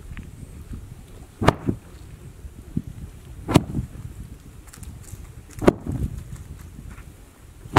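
A large woven carpet shaken out between two people, whipping with a sharp snap about every two seconds: three snaps, the first followed closely by a smaller one, and a fourth just at the end.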